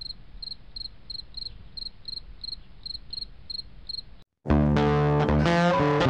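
Cricket chirping in an even rhythm of about three chirps a second, cut off just after four seconds; after a brief gap, guitar music starts loud about four and a half seconds in.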